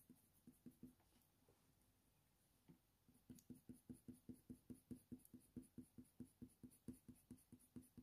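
Faint sound of a Faber-Castell Polychromos coloured pencil making small, quick strokes on hot-press watercolour paper. There are a few scattered strokes at first, then from about three seconds in a steady run of about four to five strokes a second.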